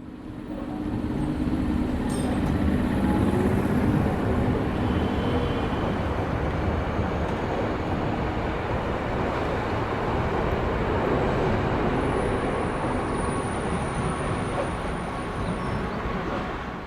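Steady rumble and noise of a moving vehicle in city ambience, with a thin high whine that holds for a few seconds in the second half.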